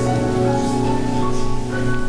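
Piano playing slow music, with notes and chords held and changing gently.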